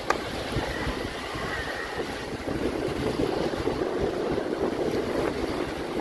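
Small waves breaking and washing up on a sandy shore, with wind buffeting the microphone as a steady rumble. A sharp click sounds about a tenth of a second in.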